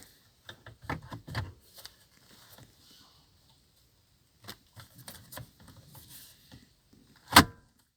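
Plastic clicks and knocks of a Toyota Prado's climate control panel being slid into the dashboard, with one loud sharp click near the end.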